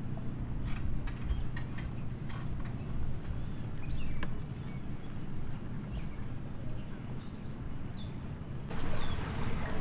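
Outdoor lakeside ambience: a steady low wind rumble on the microphone with a few faint, short bird chirps. Near the end a louder rushing hiss sets in.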